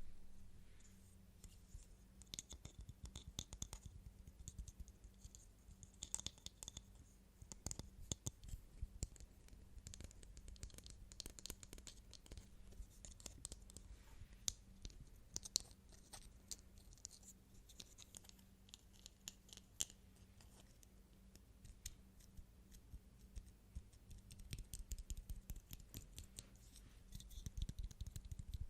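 Soft, quick, irregular tapping and scratching on objects, with clicks coming in clusters and a lull partway through.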